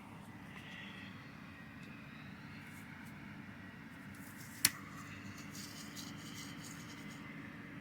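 Case IH 8250 combine harvester running steadily with a low drone as it cuts wheat. One sharp click stands out about halfway through.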